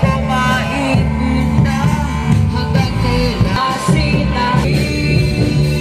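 Live band playing a song through PA speakers: drum kit, electric guitars and a singer's melody over a steady bass line.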